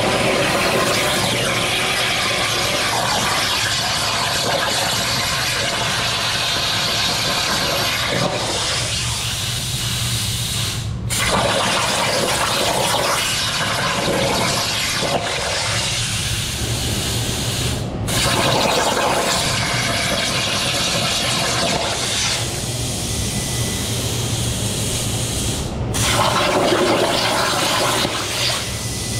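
CNC plasma cutter torch cutting steel plate over a water table: a steady, loud hissing rush of the arc and air jet. It cuts out briefly three times as the torch finishes one cut and starts the next.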